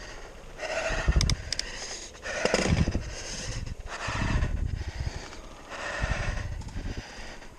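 A mountain biker breathing hard, a heavy breath about every second and a half, over tyre and wind rumble on a dirt track. A few sharp clicks about a second in.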